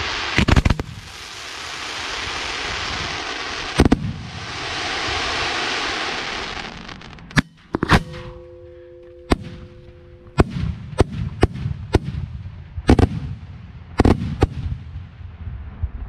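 Fireworks shells fired from ground mortar tubes at close range: a long loud crackling hiss broken by a few sharp bangs, then a steady two-note whistle for about two seconds, then a rapid string of sharp launch bangs.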